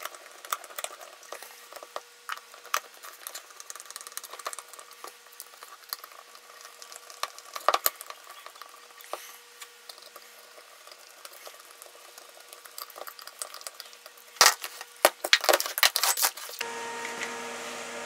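Hand screwdriver working screws into a back plate on a small wooden box: scattered light clicks, scrapes and handling noises, with a few louder knocks a little before the end.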